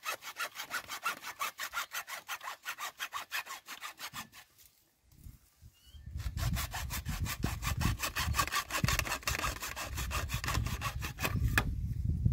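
Hacksaw cutting through HDPE plastic pipe in rapid, even strokes. It pauses for about a second and a half around four seconds in, then saws on.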